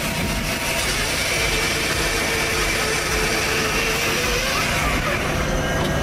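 Large chainsaw engine running steadily, a continuous engine whine.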